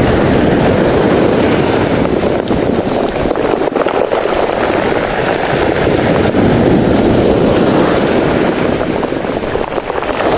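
Steady wind rushing over the microphone, mixed with the wash of sea waves.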